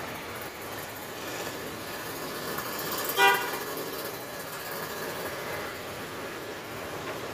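A vehicle horn gives one short toot about three seconds in, over a steady hum of street traffic.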